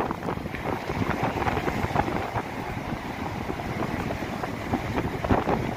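Sea wind buffeting the microphone in uneven gusts, over the steady wash of surf breaking on the beach.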